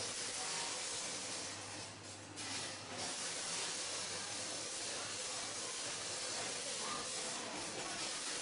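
MK 60KZ sugar packaging machine running: a steady hiss with a faint low hum, dipping briefly about two seconds in.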